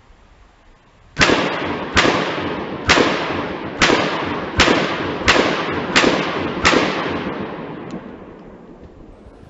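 Springfield XD-S .45 ACP pistol firing eight shots in a steady string, a little under a second apart. Each shot is loud, with a long echoing tail, and the echo fades slowly after the last shot.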